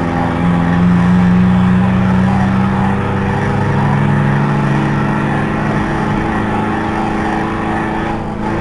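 Banger-racing Ford Transit van's engine running hard at high, fairly steady revs, its pitch drifting slightly as the throttle changes.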